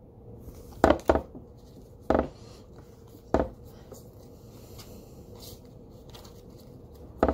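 Deck of tarot cards handled and shuffled in the hands, with five short, sharp knocks spread through it: two close together about a second in, then one each at about two and three and a half seconds, and a last one near the end.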